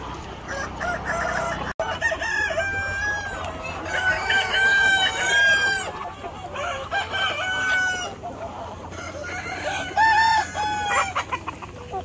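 A flock of native chickens: several roosters crow over one another while hens cluck. The crows overlap, with long held calls about four seconds in, near eight seconds and again about ten seconds in.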